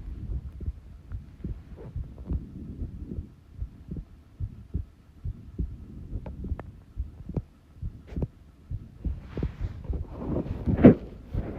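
A human heartbeat at rest: slow, soft, low thumps beat after beat. In the last few seconds the recording turns noisier and louder over the beats.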